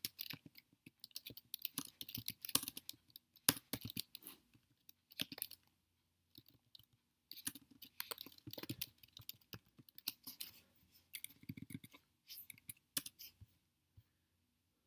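Computer keyboard typing in irregular bursts of key clicks with short pauses, stopping about a second before the end.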